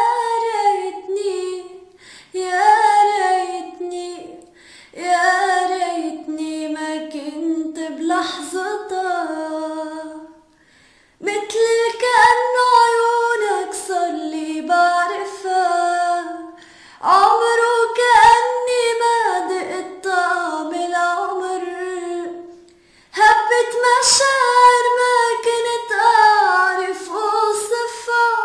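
A woman singing a slow, ornamented melody without accompaniment, in long phrases with short breaths between them.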